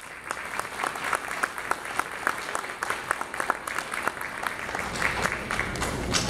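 Audience applauding, a steady run of many separate hand claps.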